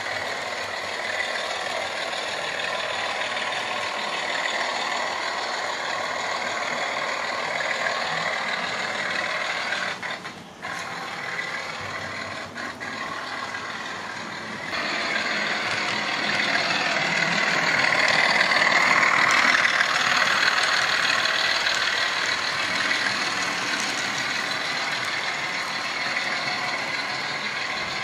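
Model trains running on the layout's track: a steady whirring rumble of small electric motors and wheels on rail, dipping briefly about ten seconds in and growing louder from about halfway as a train passes close by.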